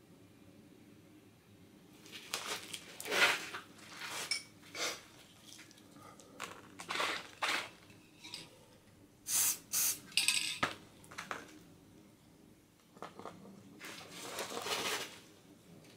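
Metal spray-paint cans clinking and knocking as they are handled, in irregular bursts of clicks and short scraping noises.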